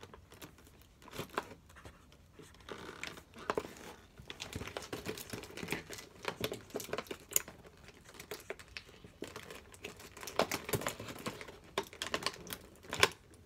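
Plastic-windowed cardboard toy box being handled and torn open: irregular crinkling and tearing of the packaging, with a sharper, louder click near the end.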